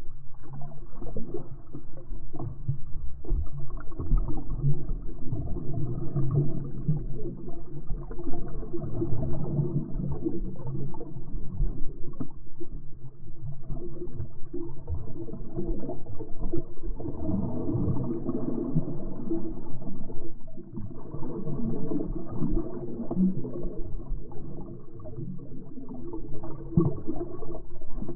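Seawater moving around an action camera held underwater, heard muffled: low churning and gurgling with many small crackles.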